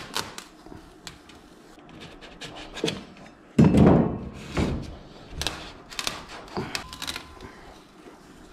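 A tube being forced down through a block of rigid foam insulation board to punch out a round plug: a run of small knocks and clicks, with a loud thud about three and a half seconds in and a smaller one a second later.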